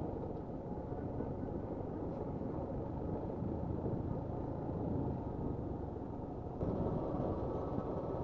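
Suzuki Gixxer SF 155 motorcycle riding along at a steady pace: its single-cylinder engine mixed with a low, even wind rumble on the action-camera microphone, a little louder about two-thirds of the way through.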